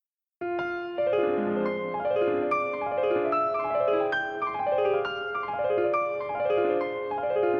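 Background piano music: a gentle piano plays flowing arpeggios that fall in pitch over and over, starting about half a second in after a moment of silence.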